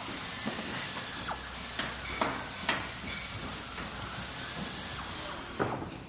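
Factory machinery at work: a steady hiss with a few sharp knocks, clanks at irregular intervals, the hiss dying away shortly before the end.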